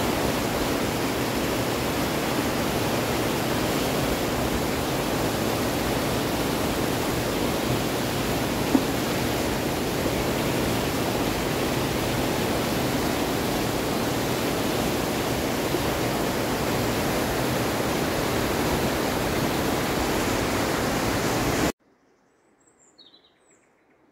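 Loud mountain river rushing, a steady noise of running water that cuts off suddenly near the end. A few faint bird chirps follow.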